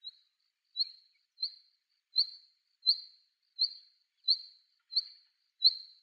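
Female black redstart calling: a short, high, thin note repeated at a steady pace about every 0.7 seconds, nine calls in all.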